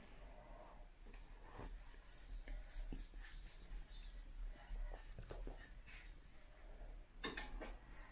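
Faint scrapes and light clinks of a metal spoon against an earthenware soup bowl, a few scattered strokes, the sharpest pair near the end.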